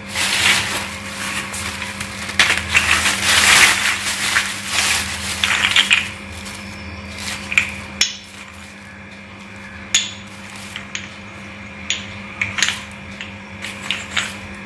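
A plastic carrier bag crackling and rustling as hands dig through it, then small clay diyas clicking and clinking against one another several times as they are taken out and sorted.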